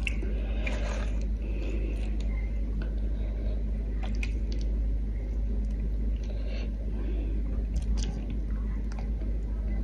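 Close-up eating sounds: chewing, with scattered light clicks and rustles of fish and lettuce leaves being handled by hand, over a steady low hum.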